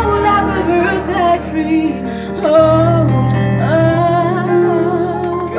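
A singer holding long, sustained notes over instrumental backing, as a pop ballad draws to its close.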